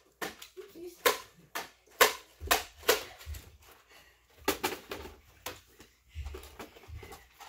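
Nerf foam-dart blasters firing in a rapid, irregular run of about a dozen sharp clacks, with a few low thumps in between.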